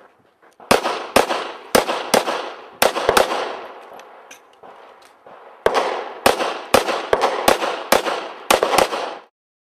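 Pistol shots fired at a steady pace of about two a second, each with a short echoing tail: a string of about seven, a pause of about two seconds, then a second string of about seven. The sound cuts off suddenly near the end.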